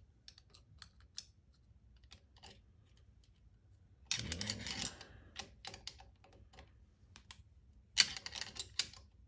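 Small metal clicks and scrapes of hand tools on the valve adjuster of a Honda CB350 engine as its lock nut is tightened against the rocker arm shaft, with two louder bursts of handling noise about four and eight seconds in.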